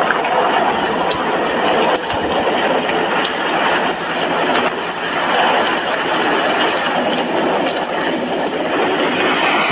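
Steady heavy rain, an even hiss with scattered ticks of individual drops.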